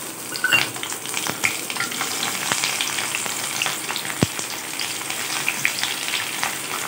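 Lightly crushed garlic cloves in their skins deep-frying in hot oil: a steady crackling sizzle with many small pops. One sharp tap stands out about four seconds in.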